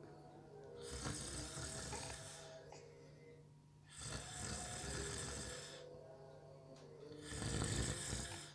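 A person snoring in slow breaths, three snores about three seconds apart, the last one the loudest with a rough low buzz.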